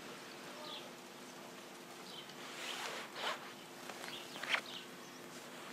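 Quiet outdoor ambience during a pause: a few brief rustles, the loudest about four and a half seconds in, over a faint steady hum.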